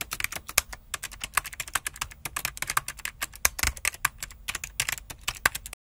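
Typing sound effect: a quick, irregular run of keyboard key clicks, several a second, which stops abruptly near the end.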